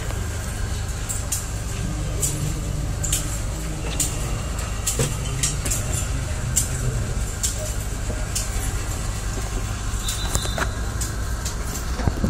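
Vertical rotisserie roasting machine running: a steady low hum with a thin steady whine above it and sharp ticks about once a second.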